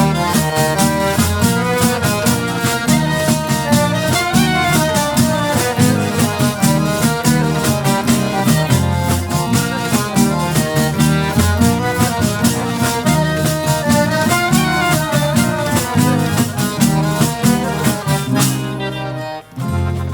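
Instrumental passage of Albanian folk dance music from a folk ensemble: melody instruments over a fast, even beat. The music dips briefly near the end.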